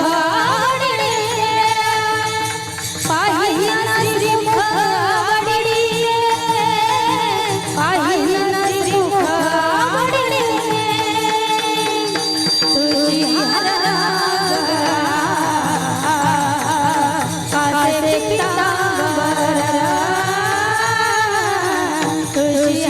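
A woman singing a Marathi devotional kirtan melody in long, ornamented, wavering phrases without clear words, over a steady instrumental accompaniment.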